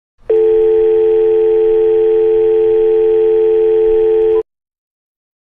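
A loud, steady electronic alert tone of several pitches held together. It switches on abruptly and cuts off after about four seconds.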